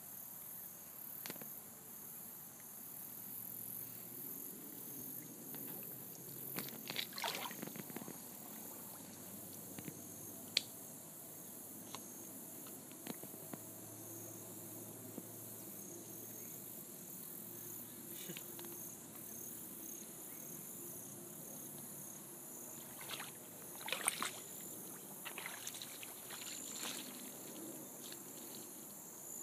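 Creek-side ambience: insects chirping steadily and high-pitched, over the faint slosh of shallow water. Short bursts of clicks and rustles come about seven seconds in and again around twenty-four seconds.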